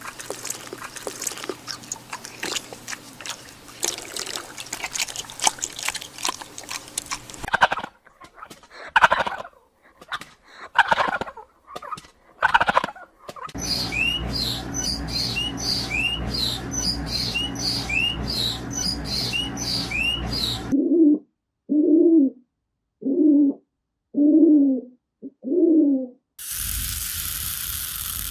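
A sequence of different animal sounds cut one after another: dense clicking and rustling, a handful of separate calls, then birds chirping repeatedly over a steady hum, then five short calls with gaps between them.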